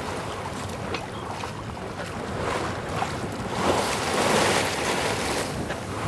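Wind buffeting the microphone and waves washing along a sailboat's hull under way: a steady rushing noise that swells louder about halfway through.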